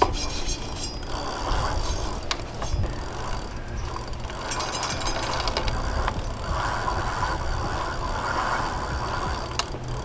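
Bicycle freewheel ratcheting and chain running as an e-bike's pedal crank is turned backward by hand, the chain drawn through a cleaning rag.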